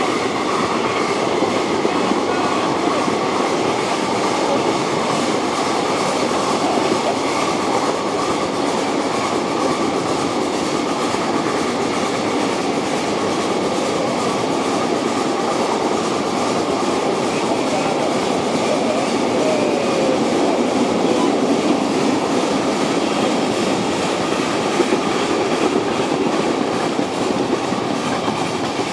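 Ride-on live steam locomotive working as it pulls a train of miniature cars, its steel wheels rolling and clicking along the rails.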